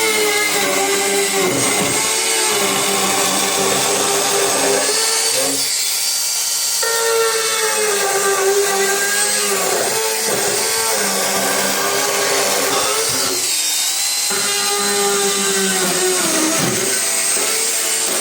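Bosch NanoBlade saw cutting chipboard: a steady motor whine that sags in pitch several times as the blade bites under load and recovers in between.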